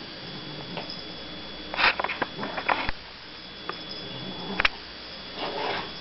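A cat tussling with a stuffed toy: several short noisy bursts about two seconds in, a sharp tap a little past halfway, and a longer noisy burst near the end.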